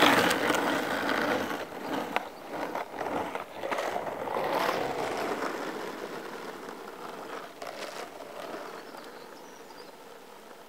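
Skateboard wheels rolling over rough asphalt, loud as the board passes close and then fading steadily as it rolls away, with a sharp click about two seconds in.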